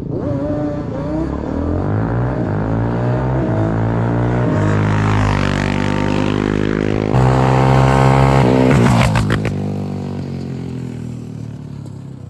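A Yamaha Banshee 350 two-stroke twin and a Yamaha Raptor 700 sport quad accelerating hard in a drag race. The engine pitch climbs and drops back with each upshift, twice. It is loudest about eight seconds in, then fades as the quads pull away.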